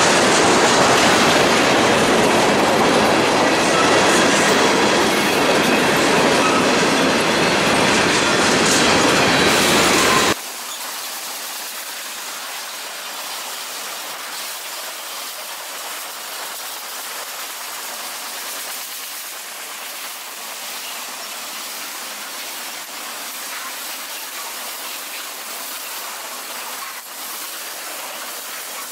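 Freight cars of a Canadian National train rolling past close by, the wheels rumbling and clattering on the rails. About ten seconds in, the sound drops abruptly and turns quieter and thinner, with the deep rumble gone.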